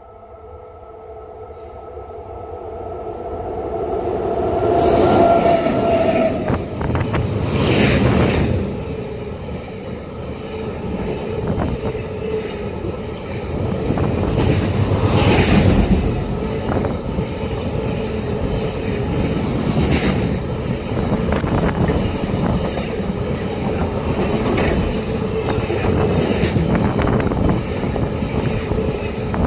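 Double-stack container goods train hauled by an AC electric locomotive, approaching and running past close by. A steady whine grows louder over the first few seconds. Then comes the continuous rumble and clatter of the wagons rolling by, with a few louder surges.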